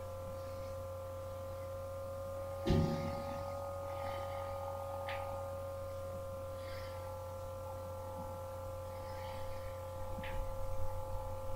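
Steady electrical hum with a high whine over it, a soft knock about three seconds in, and a few faint clicks: shoulder joints clicking as the arms sweep around.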